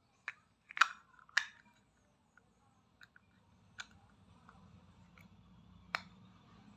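Plastic hinged lid of a pTron earbuds charging case clicking as it is snapped shut and flipped open in the hands: a handful of sharp clicks, the two loudest close together about a second in, and single clicks later on.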